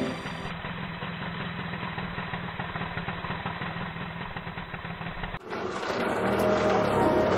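Auto-rickshaw's small engine running steadily at a low pace. About five seconds in, it is cut off and background music comes in.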